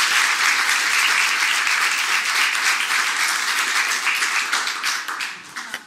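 An audience applauding: dense, steady clapping from many hands that thins out and dies away near the end.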